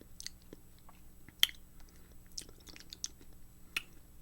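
Mouth chewing a soft, frosted cotton candy cookie close to the microphone: scattered short, wet mouth clicks, the sharpest about a second and a half in.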